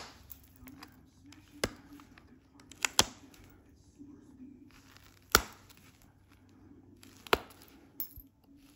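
Flint knapping on heat-treated Flint River chert: about six sharp clicks, spaced irregularly a second or two apart and two of them close together near three seconds in, as the flaking tool meets the stone's edge and flakes snap off, with soft handling rustle between.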